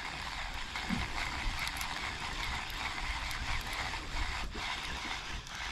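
Baitcasting reel cranked steadily, its gears whirring and ticking as a hooked fish is reeled up under load.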